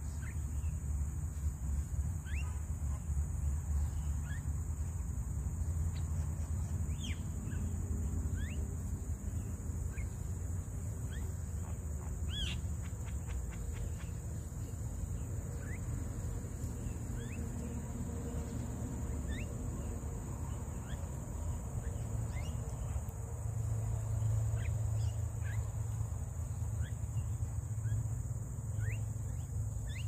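Scattered short rising bird chirps over a steady high-pitched insect drone and a low rumble, with a quick run of clicks about twelve seconds in.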